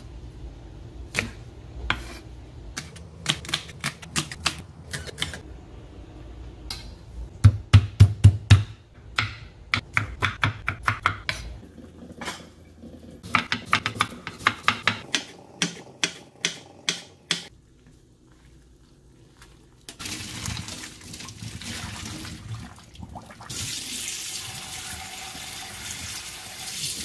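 Chef's knife chopping vegetables on a wooden cutting board, in quick runs of sharp strokes. Later, tap water runs steadily onto noodles in a stainless steel strainer, getting louder near the end.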